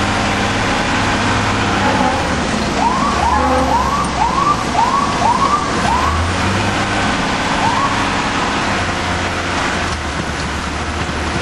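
Fire engine's electronic siren sounding in quick rising-and-falling swoops, about two a second for a few seconds, with one more a little later, heard from inside the cab over the steady drone of the truck's engine.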